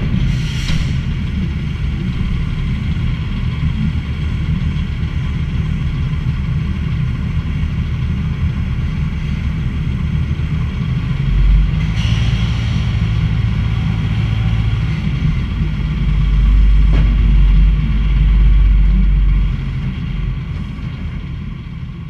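Tractor engine running steadily as it tows a round bale chaser, with the low rumble swelling about twelve seconds in and again from about sixteen to nineteen seconds; the sound fades away near the end.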